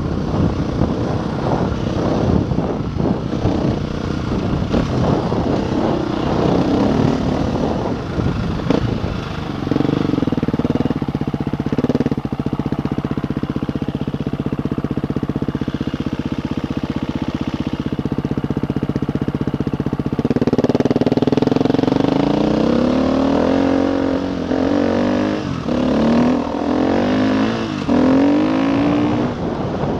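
KTM EXC enduro motorcycle's single-cylinder engine pulling up a loose gravel climb. It sounds rough and clattery for the first eight seconds or so, then holds a steady engine speed, and from about twenty seconds in it revs up and down repeatedly.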